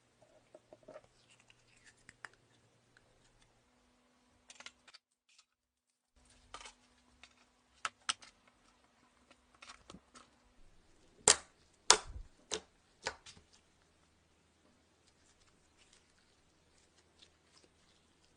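Slime being squished and stretched by hand, giving scattered sharp clicks and pops, the two loudest a little past the middle.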